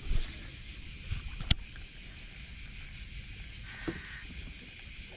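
A steady high-pitched insect chorus over low wind rumble, with one sharp click about a second and a half in.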